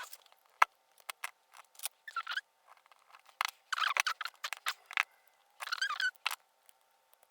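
Metal tools working on a challenge lock cylinder as it is taken apart: scattered sharp metal clicks and short scratchy squeaks of metal scraping on metal, from prying at the cylinder's retaining clips.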